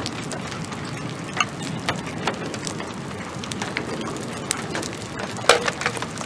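Rain falling steadily, with scattered sharp ticks of drops striking nearby surfaces and one louder tick about five and a half seconds in.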